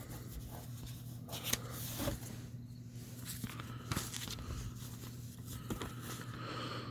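Faint rustling and scattered light clicks of packaging being handled and opened, over a steady low hum.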